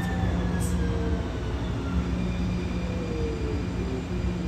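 Siemens S700 light rail car heard from inside, its traction motors whining over a steady low hum and rumble, the whine falling slowly in pitch as the train slows.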